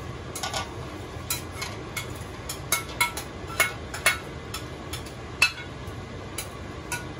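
A metal spoon and a glass dish clinking as snow peas are scraped out into a stainless steel stockpot: about a dozen sharp, irregular clinks with a short ring, the loudest about five and a half seconds in.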